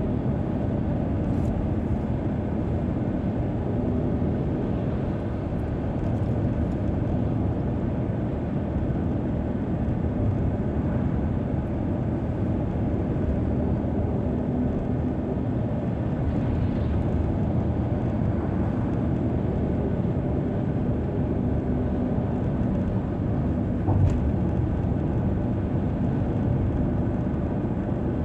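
Steady road noise of a car driving at highway speed: an even rumble of engine and tyres on the road surface. A single brief knock sounds near the end.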